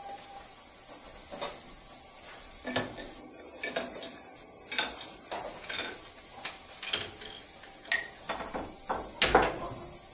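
Light wooden clicks and knocks from a homemade chain-reaction machine built of wooden blocks and tracks as it runs, irregular and roughly one every half second to a second. The loudest knock comes near the end.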